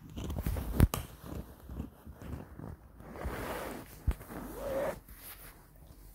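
Seven-month-old beagle puppy gnawing a pork bone up close: teeth rasping and crunching on the bone in irregular bites. A sharp knock a little under a second in is the loudest, with another about four seconds in.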